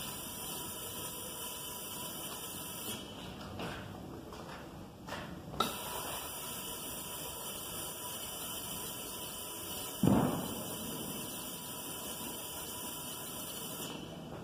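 Industrial electrostatic powder-coating gun spraying, a steady hiss of air and powder. The hiss stops for a couple of seconds about three seconds in, starts again with a click, and stops near the end. A single thump comes about ten seconds in.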